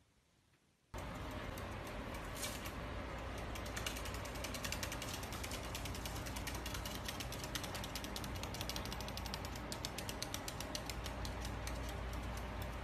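White-bellied caique on a wooden tabletop making a rapid, steady run of ratchet-like clicking and scratching, starting about a second in after a moment of silence.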